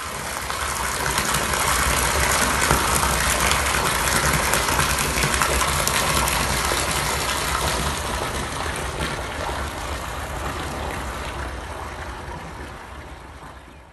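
Water gushing steadily from the outlet pipe of a solar DC submersible borewell pump into a concrete tank, growing fainter over the last few seconds.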